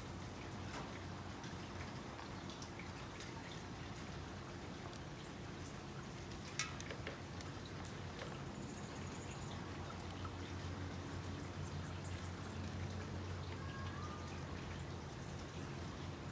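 Basket weaving: faint scattered clicks and crackles of weaving material being handled, with one sharper click about six and a half seconds in, over a steady low hum.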